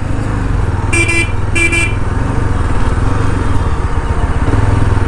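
Motorcycle engine running steadily at low speed, with two short horn beeps about a second in, half a second apart.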